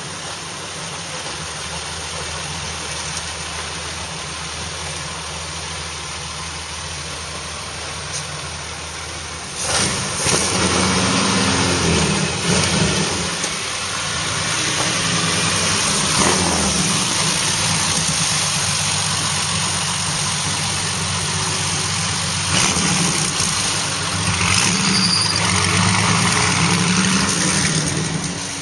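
Bentley 8 Litre's big straight-six engine running steadily at idle. About ten seconds in it gets suddenly louder as the revs come up, keeps running hard with a few swells, and eases back near the end.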